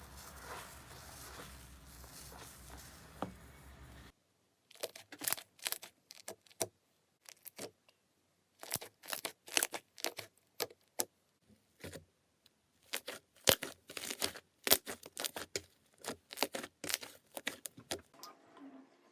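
Slime being handled: a continuous wet crackle, then a run of short sharp crackles and pops after a cut about four seconds in.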